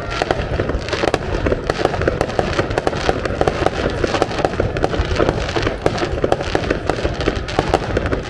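Fireworks display: many shells bursting and crackling in quick succession, an unbroken string of sharp bangs and pops.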